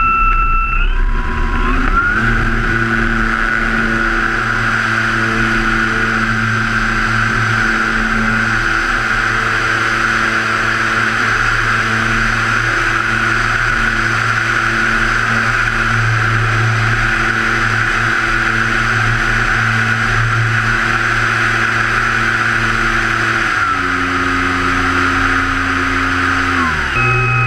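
Radio-controlled Mitsubishi A6M Zero model's motor and propeller at full throttle for takeoff and climb, picked up from under the wing with air rushing past the microphone. The pitch rises about two seconds in as the throttle opens, holds steady, then steps down twice near the end as the throttle is eased back.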